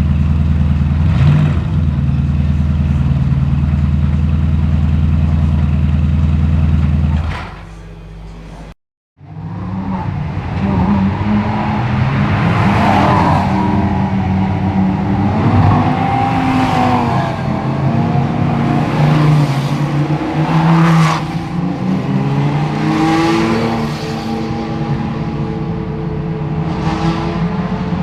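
GT3 race car engines holding a steady low note for about seven seconds. The sound then cuts out briefly. After that, a string of GT3 cars accelerate and pass one after another, engine pitch rising and falling with each pass.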